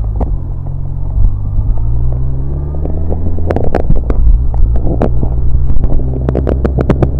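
Suzuki Bandit 1200's inline-four engine idling, then pulling away about three seconds in and running as the bike gets under way. Once it is moving, wind on the microphone adds a run of sharp crackles.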